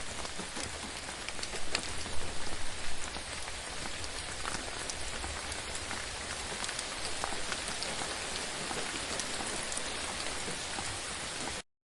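Gentle rain falling steadily: an even hiss of rainfall with many separate drops ticking through it. It cuts off abruptly near the end.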